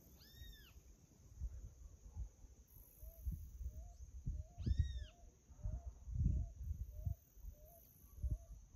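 An animal gives two short, high, arching cries, about four seconds apart, then a soft chirp repeats about twice a second. Uneven low rumbles, the loudest sound, come and go underneath.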